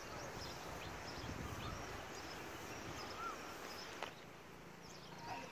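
Steady outdoor background noise with faint bird chirps and a single light click about four seconds in.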